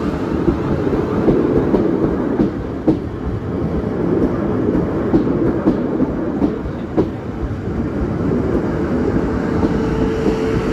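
South Western Railway electric passenger train passing close by: a steady loud rumble of wheels on rails, with irregular sharp clicks as the wheels cross rail joints. A steady tone comes in near the end.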